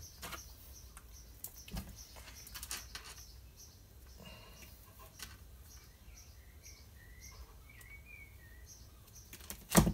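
Quiet handling of small fishing tackle: light clicks and rustles as hooks and bits are picked from a small plastic box and the mono line is handled, with a few faint high chirps through the middle and a sharper clack near the end.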